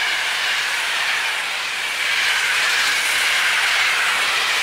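Intercity passenger coaches rolling past on the rails: a steady, loud rushing hiss of wheels on track.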